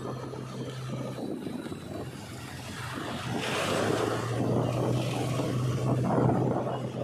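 Road traffic: a steady engine hum with tyre and road noise. A bus passing close by adds a rush of noise from about three seconds in.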